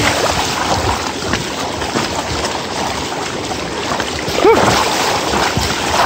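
Steady rush and splash of stream water as a mountain bike rides through a shallow rocky creek. A short vocal sound cuts in about two-thirds of the way through.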